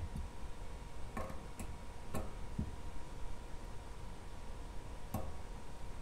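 A handful of light, irregular clicks and taps from work on a resin printer vat's metal FEP frame and tensioned film as it is gone around and tightened.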